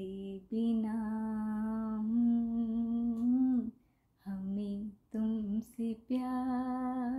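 A woman humming a slow Hindi song melody unaccompanied, in long held notes, then shorter phrases after a brief pause about four seconds in.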